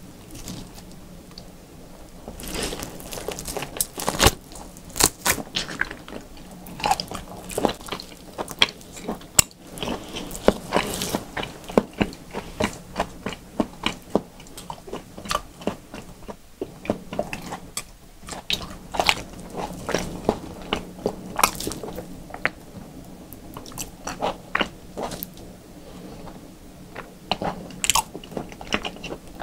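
Close-miked biting and chewing of a slab of raw beef: a dense run of sharp mouth smacks and clicks that starts about two seconds in, over a faint steady hum.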